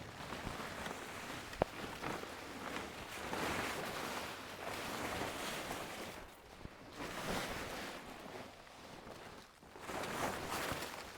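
A plastic tarp rustling and scraping in swells as it is pulled back off a brush pile, with a single sharp knock about a second and a half in.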